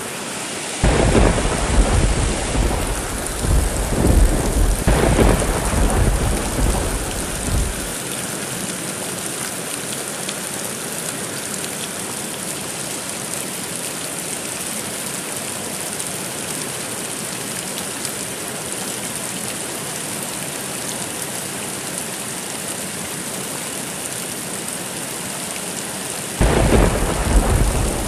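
Steady rain with a thunderstorm: a long rolling peal of thunder begins about a second in and rumbles for some seven seconds before fading back to the rain, and another peal starts near the end.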